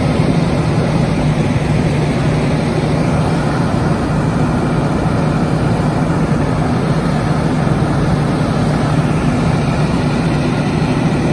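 Fire trucks' diesel engines running steadily: a loud, even, low drone.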